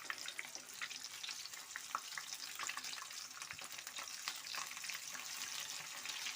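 Coated chicken wings deep-frying in hot oil: a steady sizzle with dense, irregular crackling pops.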